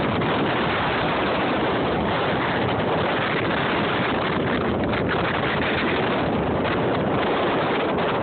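Steady wind rushing over the phone's microphone, an even roar with no let-up.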